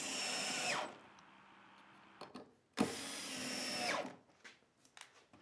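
DeWalt cordless drill/driver running screws into wood framing: two runs of about a second each, a few seconds apart, the motor whine dropping in pitch as each run winds down.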